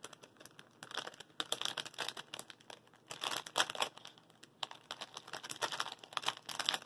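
Clear plastic packaging crinkling in irregular bursts with short pauses as it is handled and opened.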